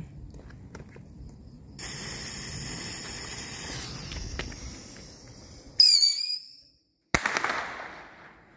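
A lit firework fountain hissing steadily as it sprays sparks, starting about two seconds in. Near the middle a short, loud, high whistle sounds, and about seven seconds in there is a single sharp crack followed by a fading hiss.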